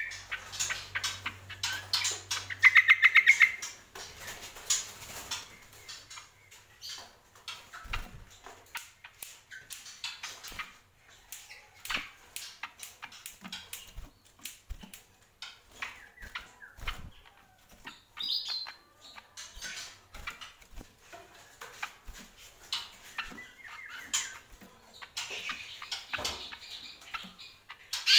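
Caged cucak kombo singing in short bursts: a fast trill of rapidly repeated notes in the first few seconds and another bout of song near the end, with scattered chirps between. In between come many sharp clicks and wing flutters as the bird moves about the cage.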